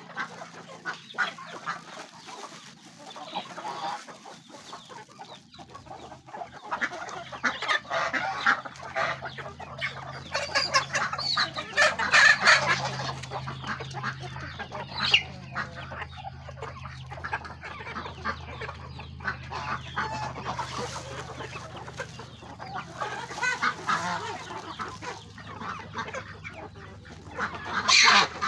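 A farmyard flock of chickens and domestic geese feeding: hens clucking continuously, with goose calls mixed in. The calling grows louder about halfway through and again at the very end.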